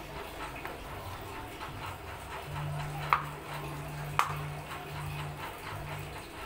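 A utensil scraping and tapping against a cooking pan, with two sharp metallic clinks about a second apart midway through.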